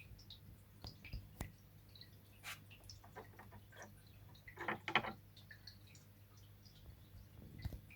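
Small plastic clicks and taps from handling an aquarium hood's LED strip and its plastic connector, with a quick cluster of clicks about five seconds in, over a faint low hum.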